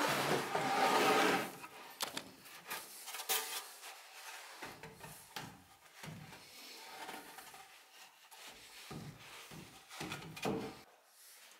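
Wooden boards being handled and slid against wood framing: rubbing and scraping with scattered light knocks. The loudest scraping comes in the first second and a half, with another short burst near the end.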